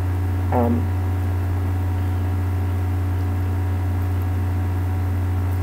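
A steady low hum with faint higher tones over it, with a brief short vocal sound about half a second in.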